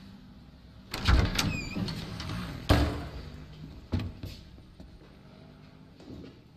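A door rattling open and banging shut: a clatter with a brief falling squeak about a second in, the heaviest bang a little under three seconds in, and a lighter knock about four seconds in.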